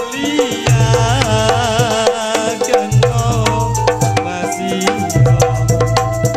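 Campursari music played by a live group: a hand-drum rhythm over long low bass notes, with a wavering melody line on top.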